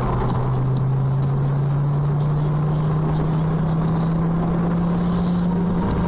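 Car engine heard from inside the cabin: a steady drone that slowly rises in pitch as the car accelerates, over road noise.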